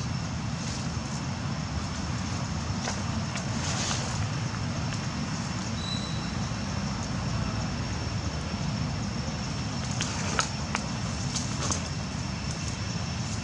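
Steady low outdoor rumble with a faint steady high tone, and a few short crackles, mostly about ten to twelve seconds in.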